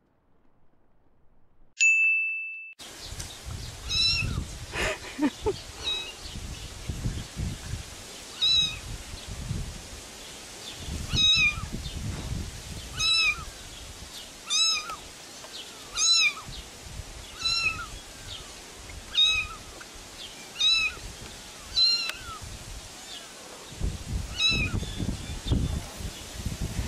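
A kitten mewing over and over, about one high-pitched call every second and a half, with a low rumbling noise underneath. A short steady ding sounds about two seconds in, just before the mewing starts.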